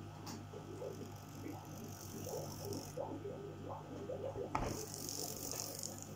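Small DC motor and gears of a vintage Tri-ang OO gauge DMU running slowly on the test track, an uneven rattle with a sharp click about four and a half seconds in. The running is still a bit sticky, pointing to a mechanism that needs more lubrication.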